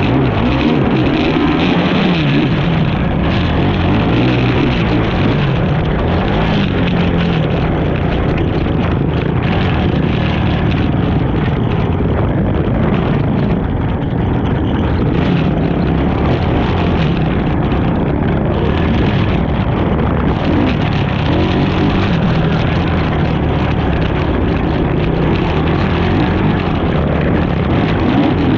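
ATV engine racing off-road, its revs rising and falling continuously as the rider works the throttle.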